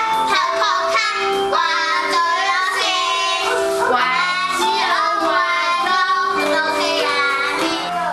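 Children singing an English song over a backing track.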